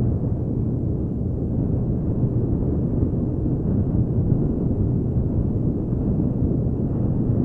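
A 1993 Honda Africa Twin XRV750's V-twin engine running steadily as the bike rides a gravel road, mixed with wind rush on the bike-mounted microphone. It is a low, even rumble without changes in pace.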